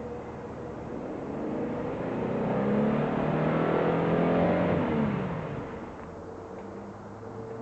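Jeep Wrangler Rubicon's engine revving up and easing back down: its pitch climbs for a couple of seconds, holds loudest in the middle, then falls away.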